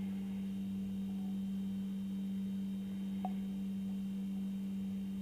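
A steady low hum: one unchanging tone with faint higher overtones.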